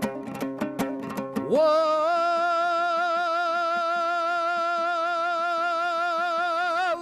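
Kazakh terme performance: brisk dombra strumming, then about a second and a half in a singing voice slides up into one long held note with a wavering vibrato over the strumming. The note breaks off near the end.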